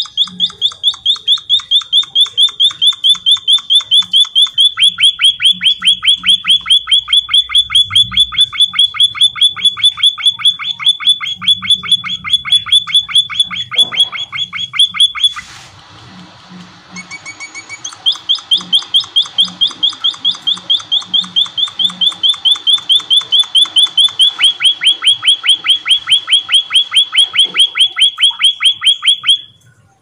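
White-headed munia (emprit kaji) singing a long, fast run of identical sharp chirps, about five a second. The song breaks off about halfway for a couple of seconds, then resumes.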